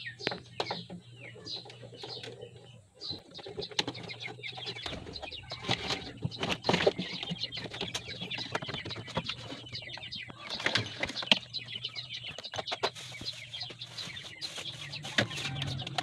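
Chickens clucking in the background, with scattered clicks and knocks from hands working on a refrigerator's cabinet.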